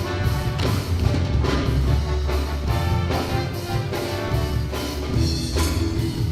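School band music, with pitched instruments over drums keeping a steady beat.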